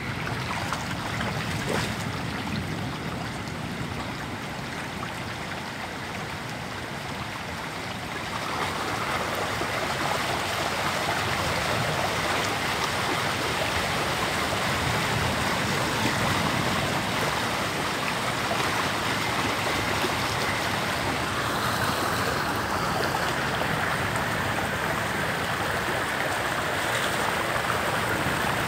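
Seawater from a coastal surge flowing down a flooded lane: a steady rush of moving water that grows louder about eight seconds in.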